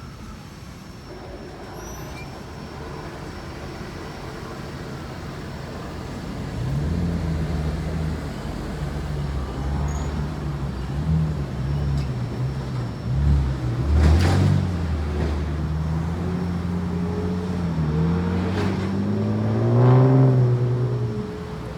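A vehicle engine running, its pitch rising near the end.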